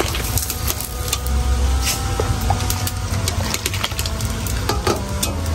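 Fish paste being shaped into balls with a spoon and dropped into a pot of soup: scattered clicks and knocks of the spoon against the pot, over a steady low rumble.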